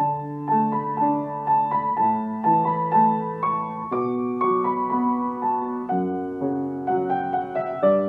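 Background piano music: a melody of short, evenly paced notes over held lower notes.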